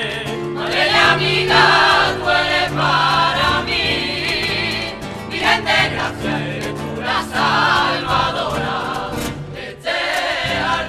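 Music: voices singing together in a choir over an instrumental backing.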